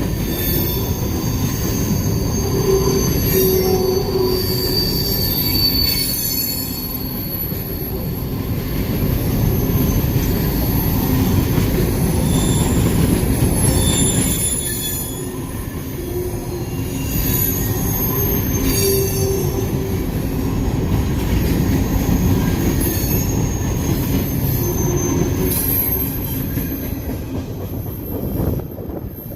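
CSX freight train rolling past: a steady rumble of the cars on the rails with high-pitched wheel squeal coming and going.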